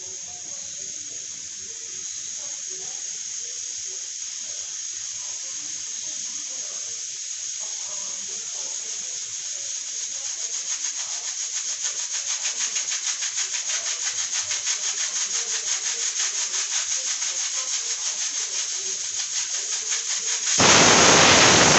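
Aluminium pressure cooker on a gas burner hissing as steam escapes past its weight valve. The hiss grows louder and, about halfway through, starts to flutter rapidly. Near the end the weight lifts and the cooker lets out a loud whistle of steam, the sign that it has come up to full pressure.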